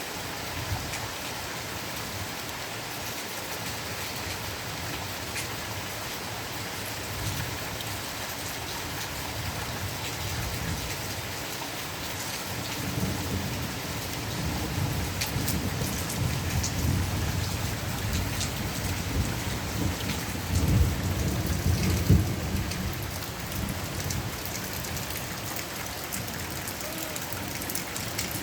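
Steady rain falling, with a long roll of low thunder that builds from about the middle, is loudest about three-quarters of the way through, then fades back under the rain.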